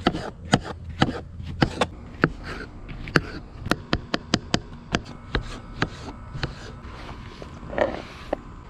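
Knife slicing mushrooms on a plastic cutting board: a string of sharp, irregular taps as the blade hits the board, two or three a second. Near the end, a short scrape as the sliced mushrooms are swept off the board into a plastic bowl.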